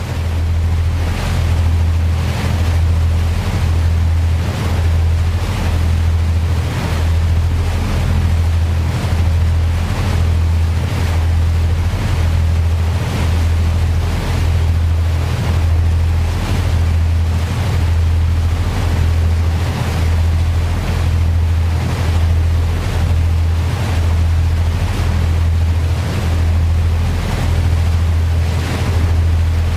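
Boat engine running with a steady low drone over the rushing, churning water of its wake, pulsing regularly a little more than once a second, with wind buffeting the microphone.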